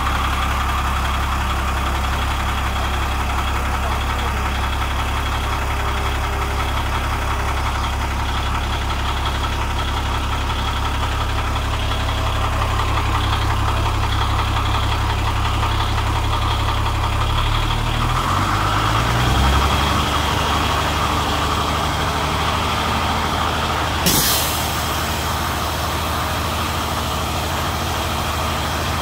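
Daewoo Novus truck's six-cylinder diesel engine idling steadily while blowing white exhaust smoke. About two-thirds of the way through, the engine speed rises a little and settles. A few seconds later comes a short, sharp hiss of air.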